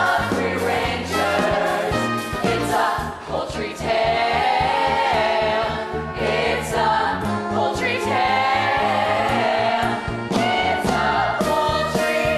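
Young cast of a children's theatre company singing together as a chorus over instrumental accompaniment, with several long held notes.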